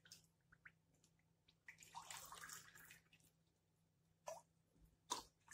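Faint sound of water poured from a glass jug into a drinking glass for about a second, followed by two sharp clicks of glassware near the end.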